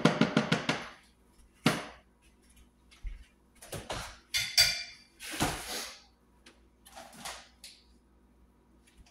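A seasoning packet shaken quickly over a tortilla: a fast run of rattling strokes for about the first second. Then scattered knocks and clatters as kitchen cupboards are opened and items on the shelves are moved.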